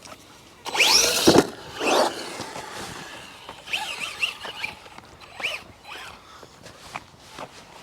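Brushless motor of a Remo Hobby EX3 1/10 short-course RC truck on 3S, whining up sharply under hard throttle about a second in along with tyre scrabble. Shorter rising-and-falling throttle blips follow around four seconds in and again a little later.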